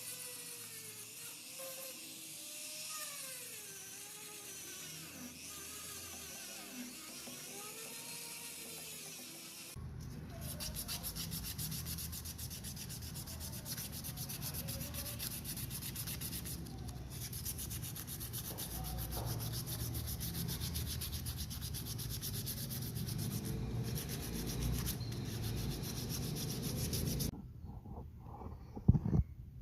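Hand sanding of a knife part: abrasive rubbing that starts softer and turns louder, with fast, even back-and-forth strokes, from about a third of the way in. The sanding stops abruptly near the end, and a couple of sharp knocks follow.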